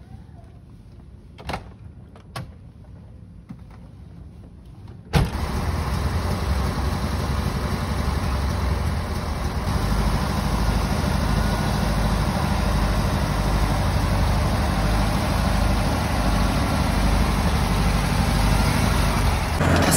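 Two short clicks, then about five seconds in a Volkswagen Type 2 bus engine comes in abruptly and runs steadily at idle.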